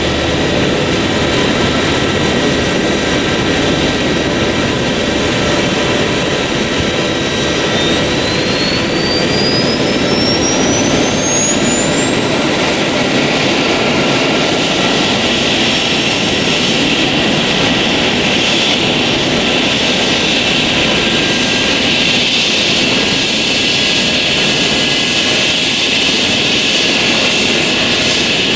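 Airbus H135 helicopter's turbine spooling up: a thin whine climbs steeply in pitch for several seconds, then holds high and nearly steady over a constant loud engine rush, typical of a turbine engine start before take-off.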